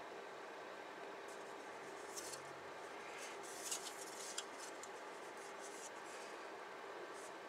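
Faint rustling and scraping with a couple of light clicks as grey plastic model-kit sprues are handled and turned, over a steady low hiss and hum.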